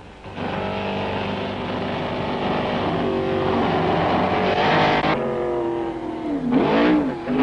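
BRM V16 racing car's supercharged 1.5-litre sixteen-cylinder engine running hard under way. Its pitch shifts a few times, then drops and climbs again about six and a half seconds in.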